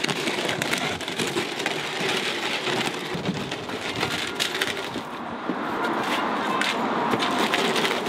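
Plastic mixing barrel of mortar dragged across brick paving: a steady scraping grind.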